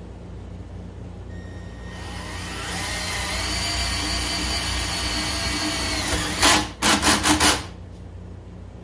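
Cordless drill/driver motor spinning up with a rising whine and then running at a steady pitch, followed by about four short, louder bursts near the end.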